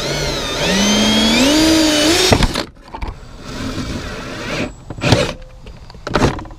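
Milwaukee cordless drill with a half-inch twist bit boring through the plastic glove box wall. The motor whine rises in pitch for about two seconds and then stops abruptly, followed by two short bursts of drilling near the end.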